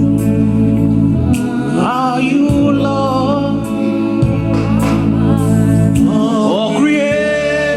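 Slow gospel worship music: sustained keyboard chords with a singer's voice gliding over them.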